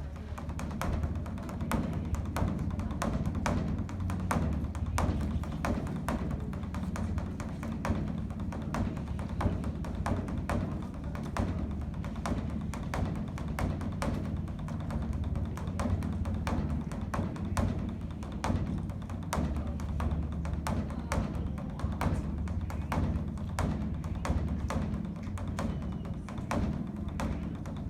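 Beopgo, the large Korean Buddhist dharma drum, beaten fast and without pause with two sticks: a continuous deep booming under a dense patter of sharp stick strokes, sounded to call the temple to evening service.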